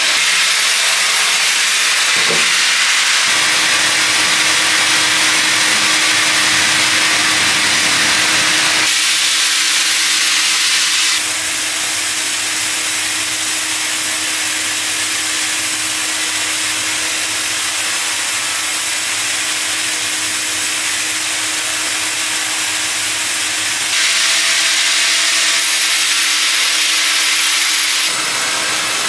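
Sawmill band saw cutting lengthwise through a log: a loud, steady hissing rasp over a constant machine hum, changing abruptly in character several times.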